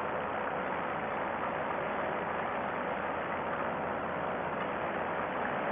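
Two-stroke paramotor engine running steadily in flight, a constant drone mixed with a rushing hiss of wind.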